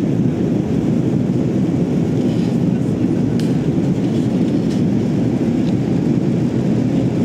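Steady low rumble of jet engines and airflow inside the cabin of an Airbus A330-300 climbing out after takeoff.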